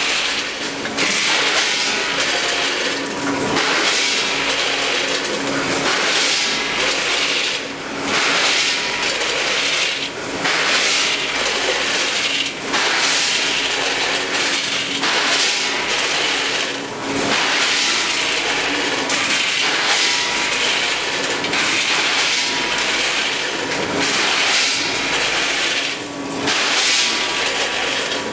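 Multihead combination weigher running with ravioli: a steady rush of pasta pieces sliding over the vibrating stainless pans and tumbling through the weigh buckets, over a steady machine hum. The rush dips briefly every few seconds as the machine cycles.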